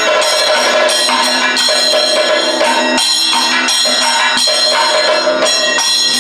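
Kathakali accompaniment music: ringing metal hand cymbals and gong struck in an uneven rhythm, with drums.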